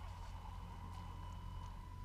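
Small brushed 370 electric motor and all-plastic gearbox of an RC truck whining steadily at low speed as it drives through mud.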